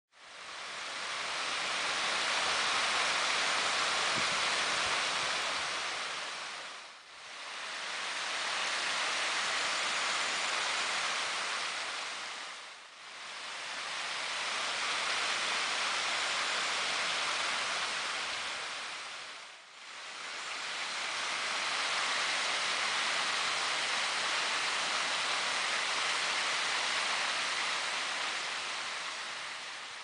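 Water pouring over a stone ledge in thin falls, a steady rushing splash. It fades out and back in three times at edits.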